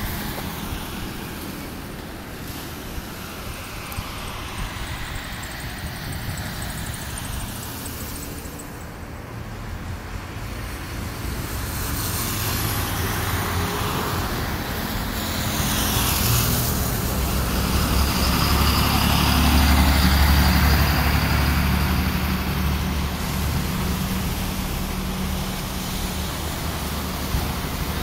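Road noise of a moving car: a steady rumble of tyres and engine with passing traffic, the low rumble swelling louder about two-thirds of the way through and then easing.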